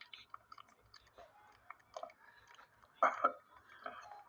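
Capuchin monkey chewing a mushy, overripe banana: wet smacking and clicking mouth sounds, with a louder double smack about three seconds in.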